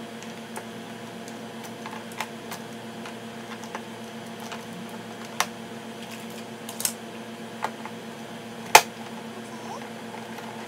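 Hard plastic toy parts clicking and knocking as they are fitted onto a baby activity chair's plastic tray: scattered sharp clicks, the loudest near the end, over a steady hum.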